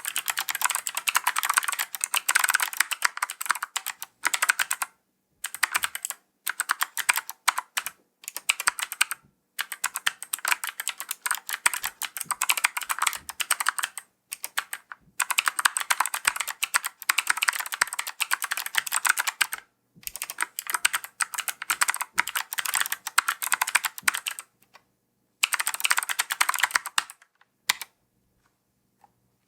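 Typing on a ZSA Moonlander split mechanical keyboard fitted with clicky Kailh Gold key switches: fast runs of sharp key clicks in bursts of a few seconds, broken by short pauses, stopping a couple of seconds before the end.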